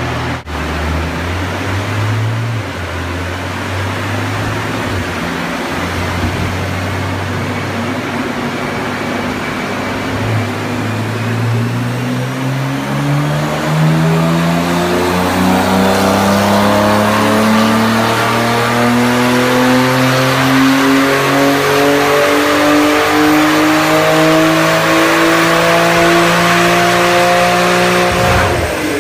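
Tuned Porsche 911 Turbo S twin-turbo flat-six on a chassis dyno during a power run: running at a steady low speed, then from about ten seconds in climbing in one long, even rise in revs through a single gear for some eighteen seconds, before cutting off sharply near the end.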